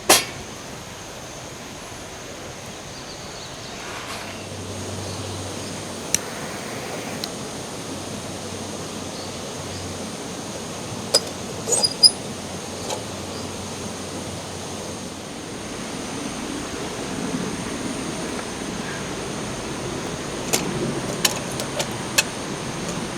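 Steady rushing outdoor background noise, a little louder in the second half, with a sharp knock right at the start and a scattering of short clicks and knocks.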